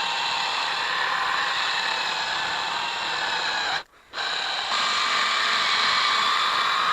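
Handheld electric power tool running with a steady high whine while working on a plastic taillight lens. It stops briefly about four seconds in and starts again.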